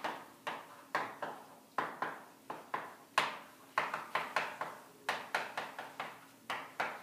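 Chalk writing on a chalkboard: an irregular run of sharp taps and short strokes, about two or three a second, as the letters and numbers go down.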